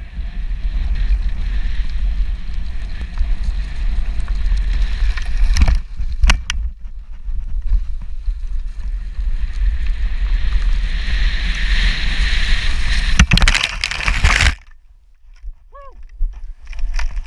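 Mountainboard riding fast over rough grass: a steady rumble of the pneumatic tyres with wind rushing over the microphone and a few sharp knocks from bumps. The noise builds, then cuts off suddenly near the end as the rider bails into long grass, followed by a short vocal sound.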